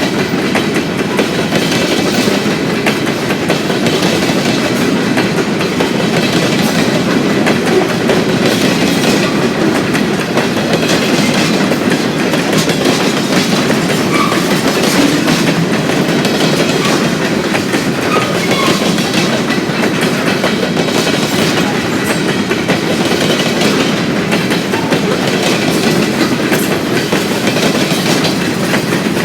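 Freight train cars rolling past at close range, a steady rumble with wheels clicking over the rail joints.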